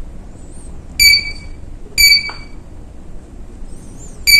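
Samkoon HMI touchscreen beeping as keys on its numeric keypad are pressed: three short, high electronic beeps, two a second apart and a third near the end.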